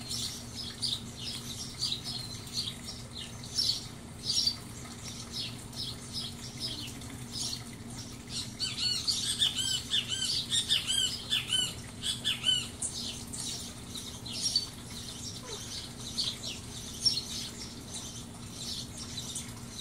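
Small birds chirping and calling over and over, with a burst of quick, arching repeated calls from about 8 to 13 seconds in. A steady low hum runs underneath.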